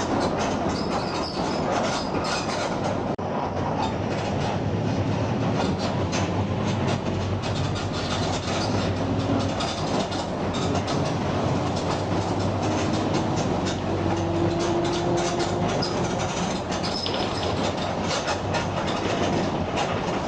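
Mercedes-Benz OF 1721 BlueTec 5 bus running at mid revs: a steady engine drone under constant rattling and knocking, with the differential growling.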